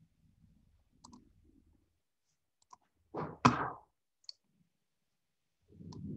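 Computer keyboard and mouse clicks: a few faint clicks, then one sharper, louder click with a short rustle about three and a half seconds in, as the browser is switched to full screen.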